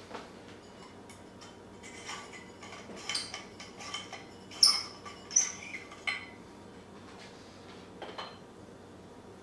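Frosted glass light shade clinking and scraping against the metal ceiling fixture as it is turned by hand: a run of sharp clinks in the middle, the loudest about four and a half seconds in. A single light knock comes at the start and another about eight seconds in.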